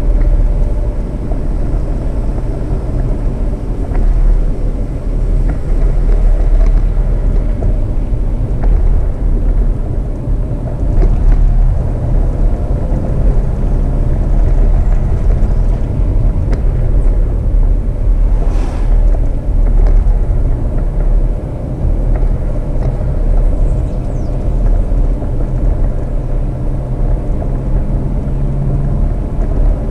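Jeep Renegade driving on a dirt road: a steady rumble of engine and tyres on the unpaved surface.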